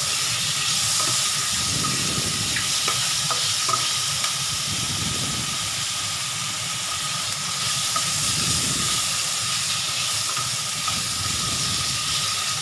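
Pork, sliced sausage, onion and garlic sizzling steadily as they sauté in a frying pan, with a wooden spatula stirring and turning them now and then.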